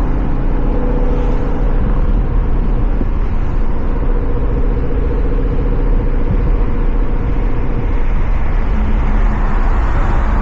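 2017 Ford Mustang GT's Coyote 5.0 V8 running through a Corsa Xtreme catback exhaust while driving at a steady, light throttle, a steady exhaust note with no big revs.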